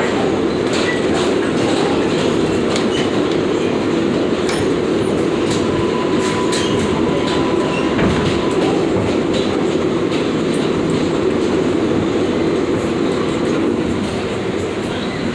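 New York City Subway 7 train running on the rails: a steady rumble of the wheels with scattered clicks from the track. A faint steady high tone comes in for a couple of seconds near the middle.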